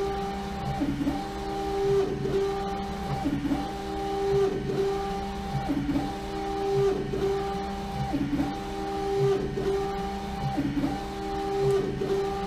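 LogoJet UV printer's print-head carriage shuttling back and forth over a bottle turning in a rotary jig, its motor whine rising and falling with each pass, about one pass every 1.2 seconds. The printer is laying down the colour coat of a full-wrap print.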